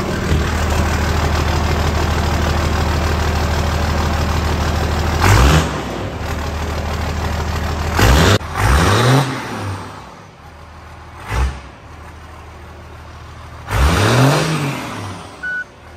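1960s farm truck engine idling loudly through a new vertical exhaust stack with no baffles fitted, then blipped several times, each rev rising and falling in pitch. The idle settles quieter between the later revs.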